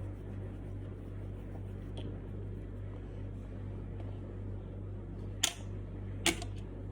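Steady low hum of room noise, broken near the end by two sharp clicks a little under a second apart.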